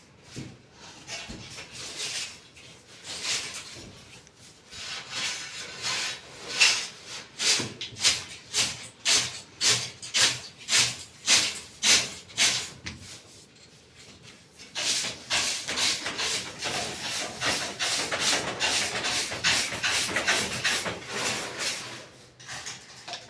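Rhythmic rasping strokes of a hand tool working a rough surface, about two a second, giving way about halfway through to faster, almost continuous rasping.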